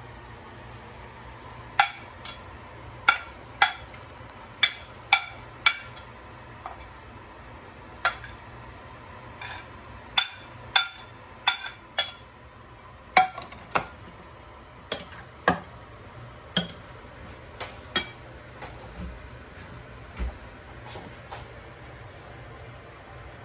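A plastic serving spoon knocking and scraping against a dinner plate and bowl in a string of sharp clinks, often less than a second apart, as chopped vegetables are pushed off the plate into the bowl and stirred.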